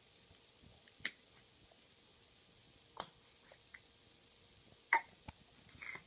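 An infant hiccuping: three short hics about two seconds apart, the last one the loudest.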